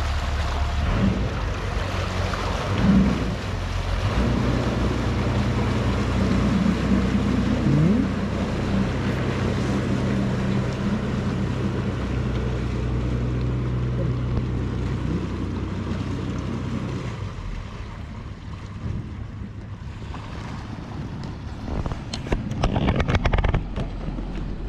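Tour boat's engine running steadily over wind and water noise, then throttling back about two-thirds of the way through as the boat comes in to the landing. A few short knocks follow near the end.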